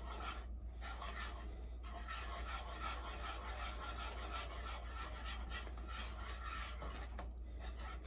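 A utensil scraping round the bottom of a pot, stirring Parmesan into a thick cream sauce: a fast, steady rasping with short breaks near the start and again about seven seconds in.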